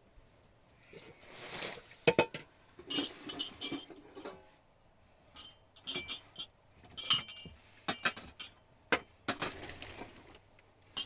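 Hard objects clinking and clattering irregularly as they are handled, about a dozen sharp knocks, several of them ringing clinks.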